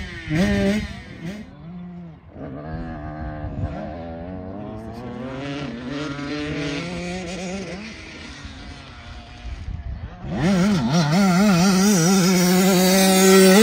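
Dirt bike engines revving, the pitch rising and falling as the riders work the throttle around the track. About ten seconds in, one bike gets much closer and louder.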